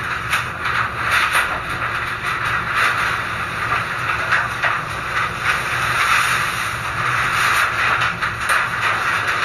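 Typhoon wind and heavy rain beating on a corrugated metal roof, whose damaged sheet has been torn open. It makes a loud, steady rushing noise with frequent short clatters throughout.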